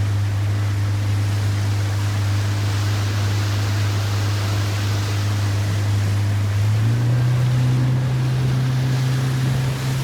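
Motorboat engine running steadily under a rush of water and wind, then speeding up about seven seconds in.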